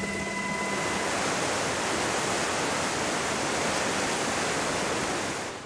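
A helicopter's steady whine fades after about a second, leaving a fast-flowing river in flood rushing loudly and evenly. The sound cuts off suddenly at the end.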